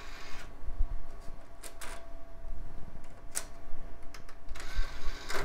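TIAC CD532E CD-ROM drive loading and reading a CD-R: a few sharp mechanical clicks and knocks at uneven intervals over the computer's steady hum.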